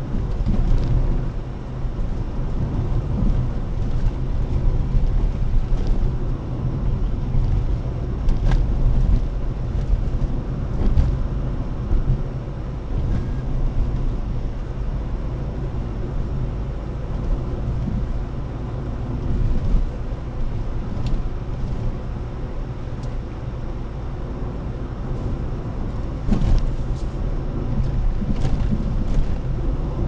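Steady low rumble of a car driving on the road: engine and tyre noise, with a few short knocks from bumps along the way.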